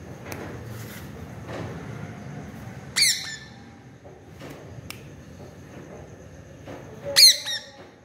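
Indian ringneck parakeet giving two short, loud, harsh squawks about four seconds apart, with a few faint clicks between them.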